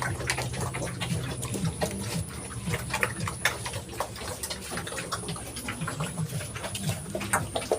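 Pigs eating feed: low grunts mixed with many short, irregular chewing and smacking clicks.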